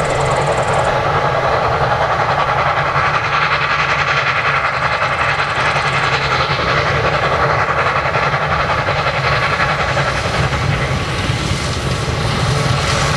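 Narrow-gauge steam locomotive approaching with its train, a steady working sound of the engine and the carriages on the rails.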